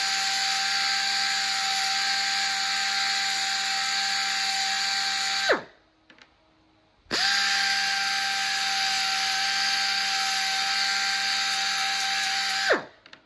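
Narrow belt sander (belt file) grinding down the head of a steel bolt, running at a steady pitch with a hiss. About five and a half seconds in it is switched off and spins down with a falling pitch. About a second and a half later it starts again and runs until it spins down near the end.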